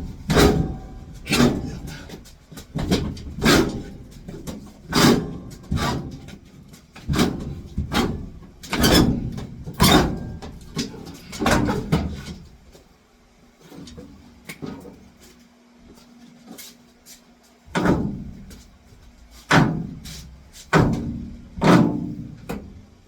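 A string of heavy knocks and bangs, roughly one a second, as the new high-efficiency furnace is pushed and worked into position. There is a pause of several seconds, then a few more knocks near the end.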